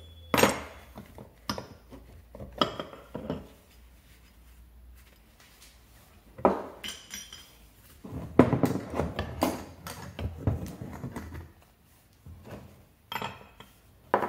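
Metal clinks and knocks of hand tools and scooter engine parts being handled and fitted. Single sharp knocks come every second or so, with a denser run of clattering about two-thirds of the way through.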